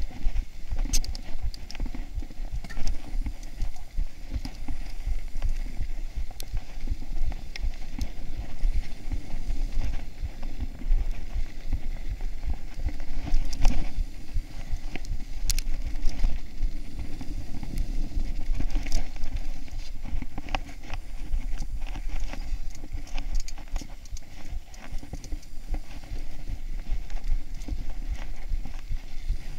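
Mountain bike riding over a rough dirt and gravel trail: continuous rattling and knocking of the bike over bumps, tyres crunching on loose stones, with a low rumble of wind on the microphone.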